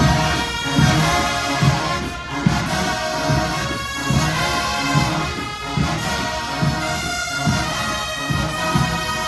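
HBCU marching band playing a loud brass passage, trumpets and trombones holding chords over bass drums beating a little faster than once a second.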